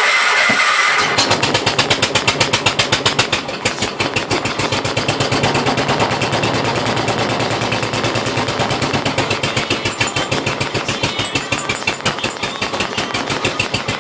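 John Deere 214 garden tractor's single-cylinder Kohler engine on a cold start: it catches about a second in and then runs with a fast, steady exhaust beat.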